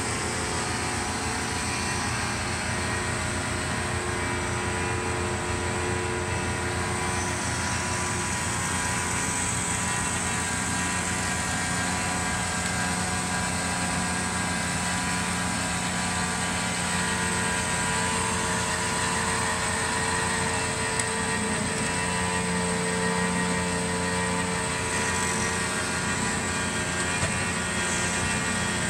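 Cosen C-250NC horizontal bandsaw running, with its 3 HP main drive and hydraulics. It makes a steady machine sound that holds an even pitch throughout.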